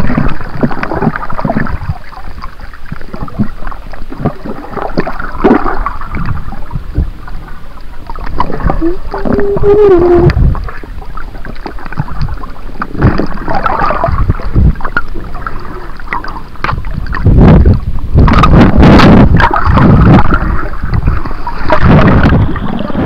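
Muffled underwater water noise around a submerged camera, sloshing and gurgling as the snorkeler moves, with louder splashing bursts in the last few seconds as the camera nears the surface. A short muffled hum about nine seconds in.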